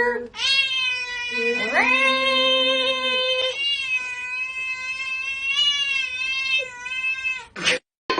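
A cat yowling in long, wavering drawn-out calls: one about three seconds long that bends up in pitch partway through, then a second held for about four seconds before it stops near the end.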